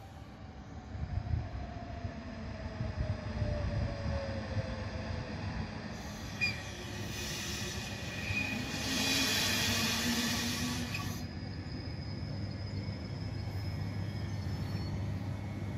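Trenitalia TAF double-deck electric multiple unit arriving and braking into the station, with a steady low rumble. A whine falls slowly in pitch over the first few seconds as it slows. Midway a hiss with a high brake squeal lasts about five seconds.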